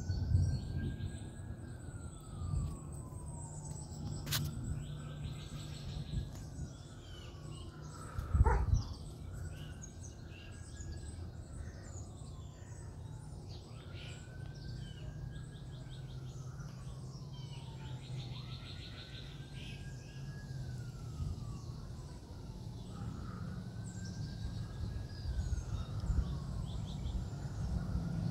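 A siren wailing: a rising and falling tone that repeats about every three seconds, with birds chirping and a steady low rumble underneath. A single knock stands out about eight seconds in.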